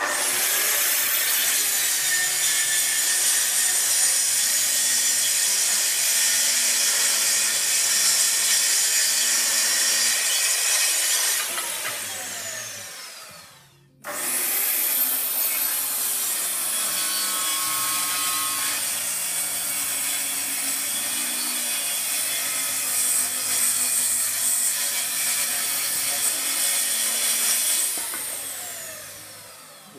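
Festool plunge-cut circular saw starting up and cutting through wooden boards along a guide rail, then spinning down with a falling whine. This happens twice, the second start coming about halfway through.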